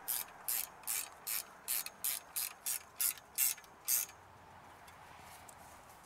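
Hand ratchet wrench clicking as a bolt is tightened: quick, even strokes, two to three a second, stopping about four seconds in.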